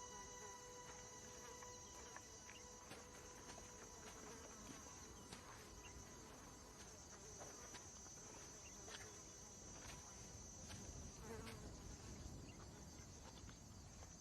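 Faint outdoor insect ambience: a steady high buzzing and chirring of insects, with scattered faint clicks.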